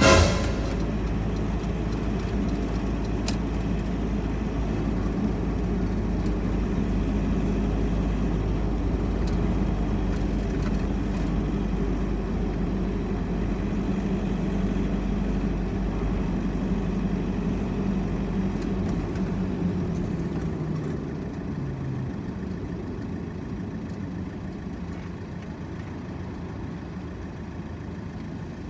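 Steady engine and road noise heard from inside a moving car in traffic, a low hum. It eases off and gets quieter about twenty seconds in as the car slows. A short loud knock right at the start.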